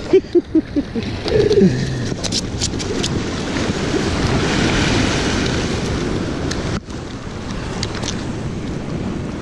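Wind buffeting the microphone over waves washing against jetty rocks, with a few light clicks and knocks from handling the spinning rod and a freshly hooked smelt.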